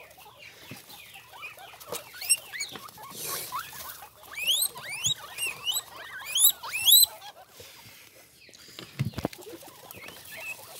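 Preás (cavies) squeaking: short rising squeaks, a few at first and then a quick run of several in the middle, as a hand reaches in to catch one. Dry straw and litter rustle beneath, with a dull thump near the end.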